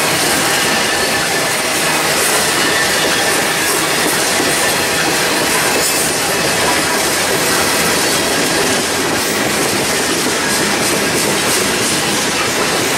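Freight train of open-top steel hopper cars rolling past close by: a steady loud rumble of steel wheels on rail, with a faint clatter as the wheels cross rail joints.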